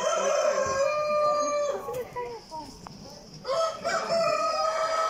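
Rooster crowing twice: two long, held crows of about two seconds each, with a pause of under two seconds between them.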